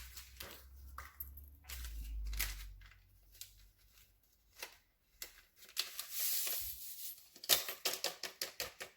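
Small paper sachets of vanilla sugar torn open and crinkled, with scattered light clicks and a quick run of taps near the end.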